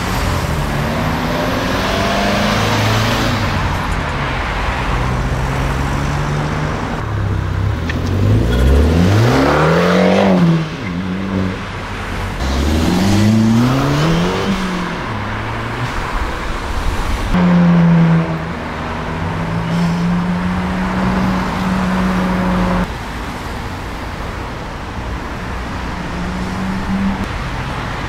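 Performance cars driving off with their engines revving. The engine note climbs sharply twice, a few seconds apart, about a third of the way in. Later a car holds a steady engine note for several seconds before it drops away.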